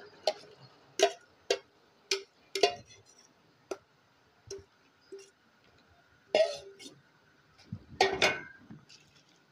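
A metal spoon clinking against a stainless steel bowl in a run of sharp, separate strikes while fish and herbs are mixed. Later come two longer rustles as a banana leaf is handled.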